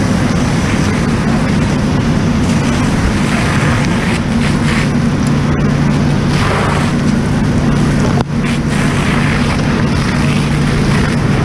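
Fire hose nozzle flowing a straight stream of water, a loud steady rush of water and spray, over a steady low drone from the diesel fire engine pumping the line. The rush dips briefly once about eight seconds in.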